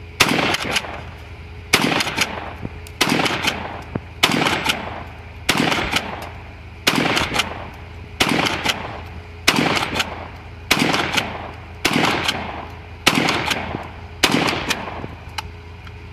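UTAS UTS-15 bullpup 12-gauge pump-action shotgun fired in a steady string, about twelve shots roughly 1.3 seconds apart. Each shot is followed by short clacks as the pump is worked to chamber the next round.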